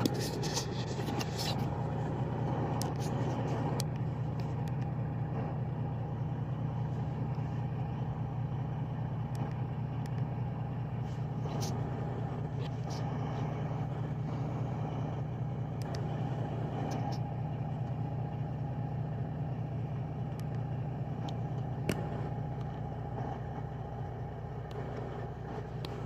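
Freightliner Coronado truck's diesel engine running steadily, a constant low hum heard inside the cab, with a few faint clicks.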